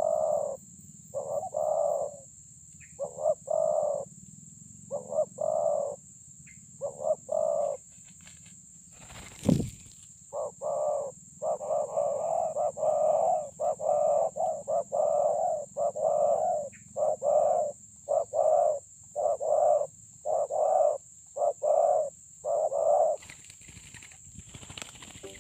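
Spotted doves cooing, short repeated coo phrases in quick runs that come thickest in the second half. About nine and a half seconds in a single sharp flutter of wings, the loudest moment, as a second dove drops in. Near the end the cooing stops and a different, noisy sound takes over.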